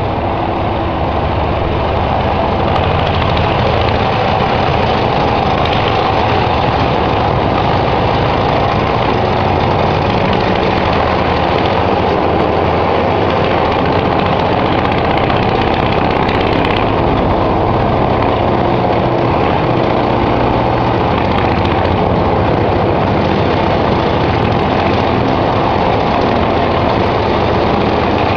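Small engine of a Nimbus Junior 2 motorized dumper (Motorjapaner) running steadily while the walk-behind machine clears snow with its front plow blade.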